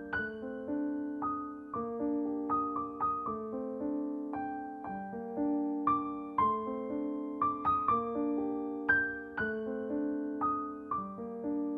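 Background solo piano music: a melody of struck notes about twice a second, each dying away, over held lower chords.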